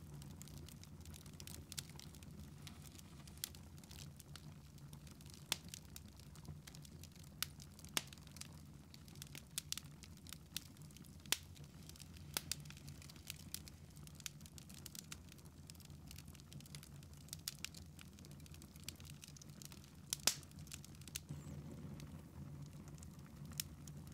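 Wood fire in a fireplace crackling: irregular sharp pops and snaps from the burning logs over a faint low steady hum.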